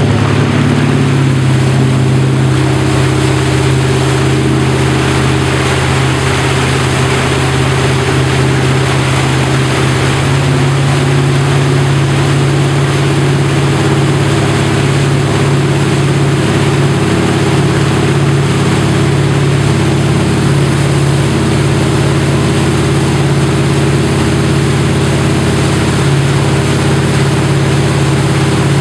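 Tow boat's inboard engine running at a steady pitch, with the rush of water from the wake.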